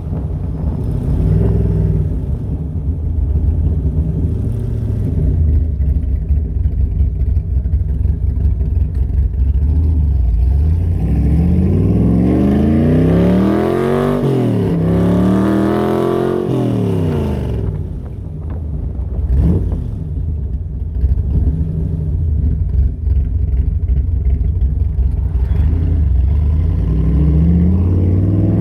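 Car engine under way, droning steadily, then revving up about halfway through with a break in pitch as it shifts gear, revving up again and easing off; near the end it accelerates once more.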